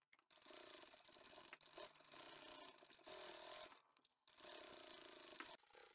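Near silence, with faint rustling of fabric being handled.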